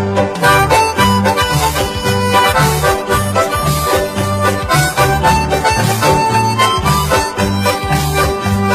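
Instrumental music with a steady beat, changing bass notes and a reedy melody line.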